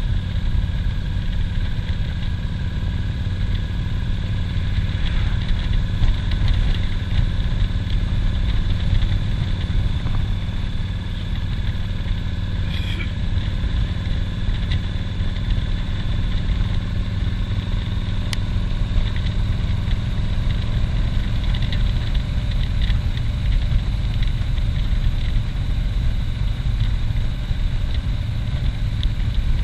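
Cruiser motorcycle's engine running steadily while riding at road speed, heard from a mount on the bike as a continuous low rumble.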